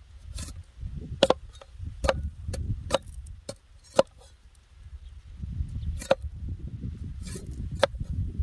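A cleaver chopping a sugarcane stalk on a wooden board. About ten sharp knocks come at uneven intervals over a low rumble.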